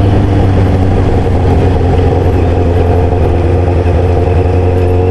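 Sport motorcycle engine running through a homemade tin-can exhaust, loud and at a steady cruise with an even, unchanging note.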